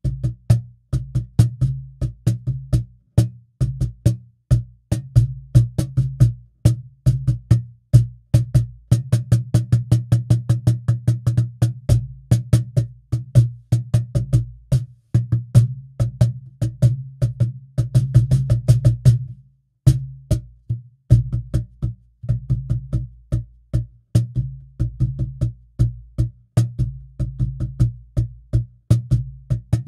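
Cajon played by hand and picked up by its installed WP02 pickup, fed direct into the computer: a fast, even run of slaps and deep bass strokes with a boomy low end. The playing breaks off briefly about twenty seconds in, then resumes.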